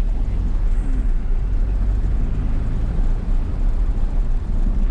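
Steady low rumble of a vehicle driving along a road: engine and road noise.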